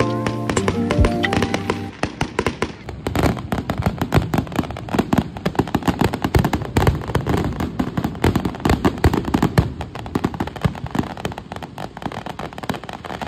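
Background music for about two seconds, then a fireworks display: a dense run of rapid crackling, popping and banging from many aerial shells, easing slightly toward the end.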